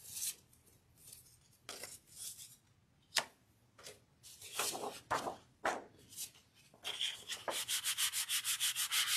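Paper and a plastic stencil being handled and rustled. Then, from about seven seconds in, a hand rubs a sheet of paper down onto a gel printing plate in rapid strokes to burnish and pull a print.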